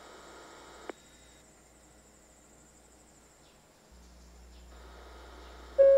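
Station public-address system between automated announcements: a single click about a second in, then a faint low hum that steps up at about four seconds as the line opens, and a loud multi-note chime starting near the end, the lead-in to the next train announcement. Faint steady insect chirring sits underneath in the first half.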